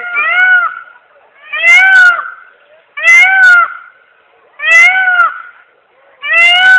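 Peacock calling over and over: five loud, cat-like calls about a second and a half apart, each rising and then falling in pitch.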